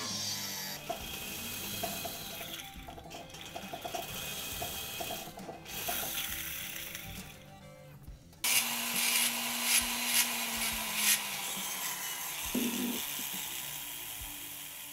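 Jeweler's small hand tools working a silver piece: irregular metal scraping and clicking, louder and raspier from about halfway through.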